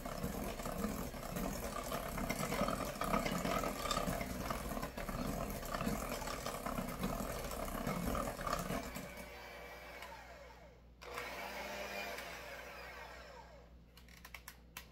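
Electric KitchenAid hand mixer running with its beaters in a stainless steel bowl of creamed butter, sugar and egg batter. It weakens about nine seconds in and stops about two seconds later, and a few sharp clicks follow near the end.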